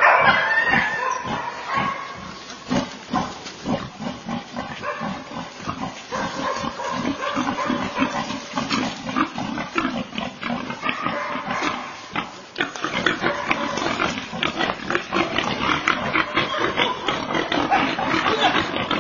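Wild boar grunting and squealing over and over, in a rough, irregular stream of calls mixed with scuffling noise.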